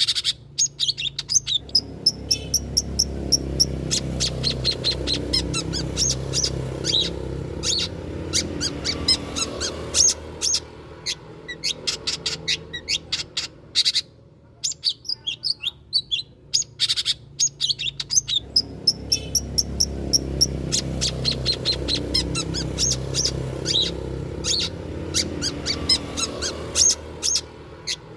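Long-tailed shrike (cendet) singing a fast, chattering song of sharp chips and twitters, used as a lure call to draw other cendets into singing. A low rumble swells up under the song twice.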